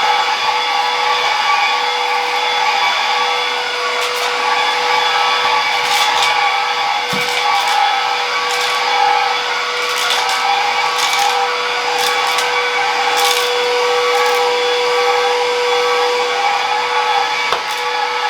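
Stick vacuum cleaner running steadily, its motor giving a continuous high whine, with short scratchy hisses now and then.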